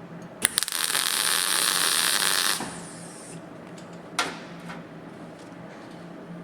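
Welder tacking a steel sill panel: after a sharp click, a harsh crackling arc hiss runs for about two seconds and then cuts off suddenly. A brief sharp crack follows about four seconds in.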